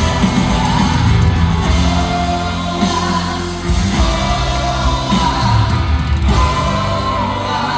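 Live pop-rock band playing at full volume, with a sung melody over heavy bass and drums.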